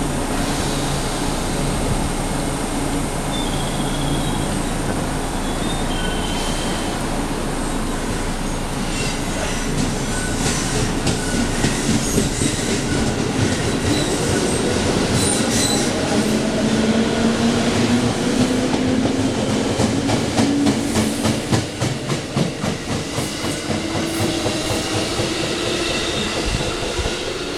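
Electric train pulling away: after a steady hum, the traction motor whine rises steadily in pitch through the second half while the wheels click over rail joints.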